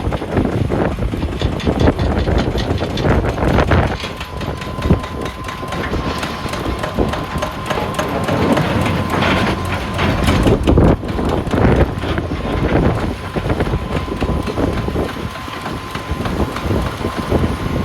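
Heavy wheel loader's diesel engine running hard, with repeated knocks and clatter of rocks throughout. A steady high whine joins in about four seconds in.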